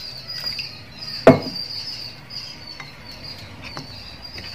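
Steel spoon stirring thin flour batter in a glass bowl, with light taps against the glass and one sharp clink about a second in. A steady high-pitched chirping runs underneath.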